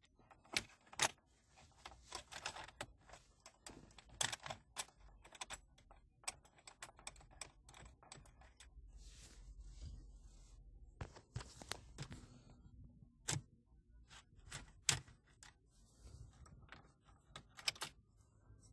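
Faint, irregular small clicks and taps of a metal L-bracket and its screw being handled and fitted into the dashboard by hand, with a few sharper clicks among them.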